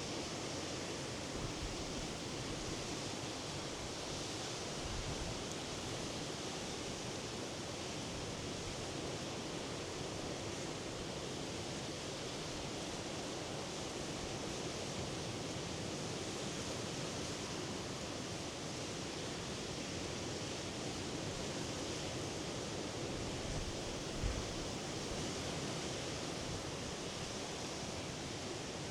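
Sea surf making a steady, unbroken wash of noise, with a brief low bump about three quarters of the way through.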